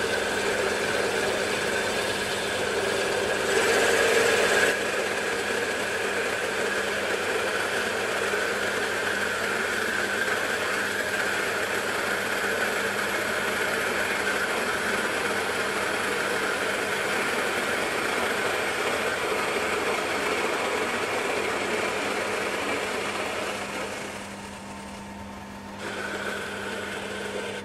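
Milling machine running while a carbide-insert boring bar cuts a hole in a cast rocker arm: a steady mechanical noise, louder for about a second around four seconds in and dipping for a couple of seconds near the end.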